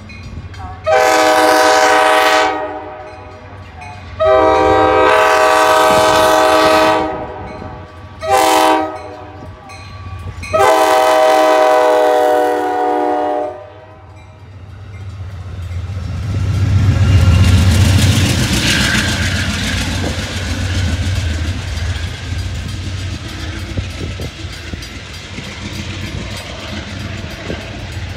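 Amtrak diesel locomotive's air horn sounding the grade-crossing signal: two long blasts, a short one and a final long one. The train then passes, the locomotive's engine rumbling loudest a few seconds after the horn, followed by the passenger cars' wheels running over the rails.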